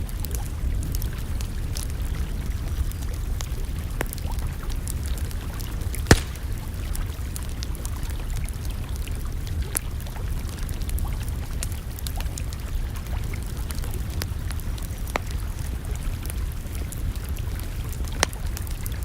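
Campfire crackling, with scattered small pops and two sharper pops, one about six seconds in and one near the end, over a steady low rumble.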